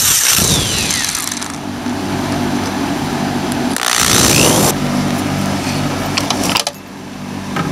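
Electric hand drill boring pilot holes through flattened 4-gauge copper ground wire into a wooden board. It runs in two bursts, the first about a second and a half long at the start, the second about a second long roughly four seconds in, with the motor pitch sliding as it speeds up and slows. A steady low hum runs between them.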